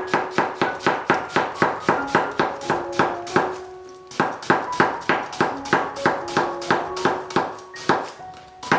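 Kitchen knife shredding a cabbage on a plastic cutting board: rapid, even chopping strokes at about five a second, pausing briefly about four seconds in, over background piano music.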